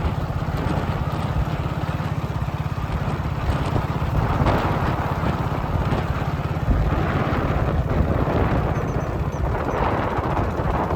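Engine running steadily with an even, low rumble, with some wind on the microphone.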